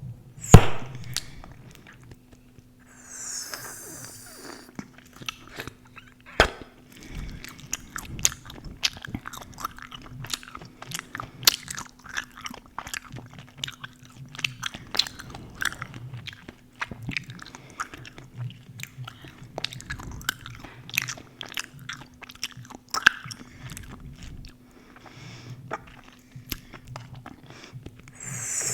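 Close-miked gum chewing: wet smacks and clicks throughout, with a loud sharp snap about half a second in and another about six seconds in. A faint steady hum runs underneath.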